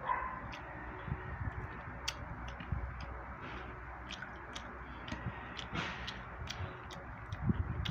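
Quiet eating at the table: hands picking apart crispy fried fish, and chewing. Over it runs a string of short, sharp light ticks, roughly two a second.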